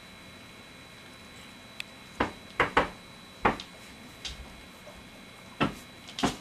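About six short, sharp knocks or clicks over a quiet background: three close together just after two seconds in, one a second later, and two more near the end.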